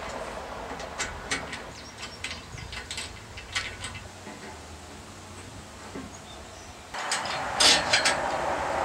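Light metallic clicks of a hand screwdriver turning set screws in a galvanized pipe fitting, a few at a time over a steady background hiss. After about seven seconds the background gets louder and a burst of sharper metal clicks comes from handling the pulley fitting on the pole.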